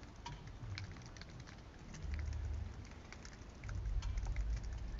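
Quiet outdoor lull: faint, scattered light ticks and pattering over a low, uneven rumble.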